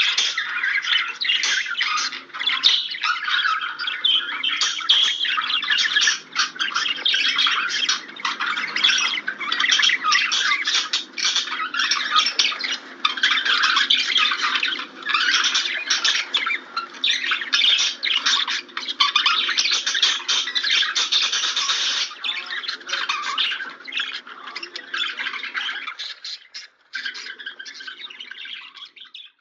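Budgerigars warbling, chattering and chirping in a dense, continuous stream of quick notes. The chatter thins out after about 22 seconds and breaks off briefly near the end.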